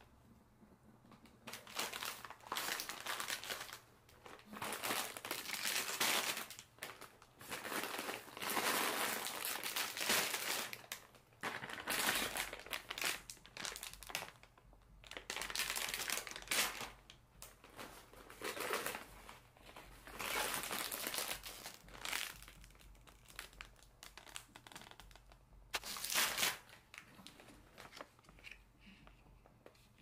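Crinkly material being handled and crumpled in about nine separate bursts, each lasting one to three seconds.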